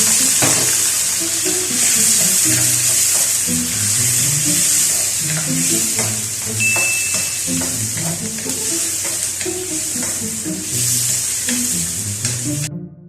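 Food frying in hot oil in a pan, a steady sizzle, with the clicks and scrapes of a spatula or ladle stirring it. Background music plays along, and the sound cuts off abruptly near the end.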